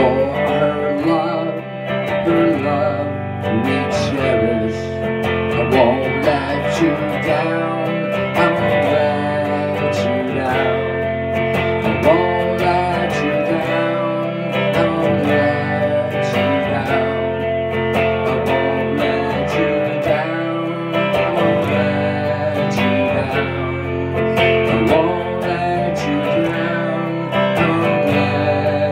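Guitar playing an instrumental passage of a song, sustained notes ringing under a changing melody line.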